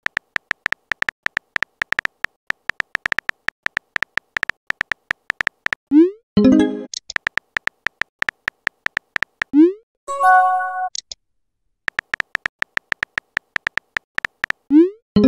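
Texting-app sound effects: rapid keyboard tap clicks, several a second, as a message is typed. Three times the typing breaks off for a short rising blip and a brief message chime: about six seconds in, about ten seconds in, and at the very end.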